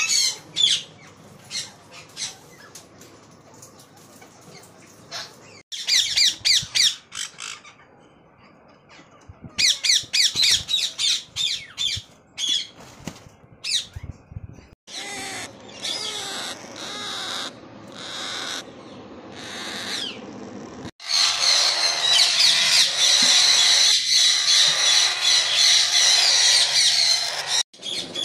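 Parrot chicks squawking in fast runs of rasping begging calls, in several short stretches. For the last several seconds it becomes a dense, continuous chorus of many chicks calling at once.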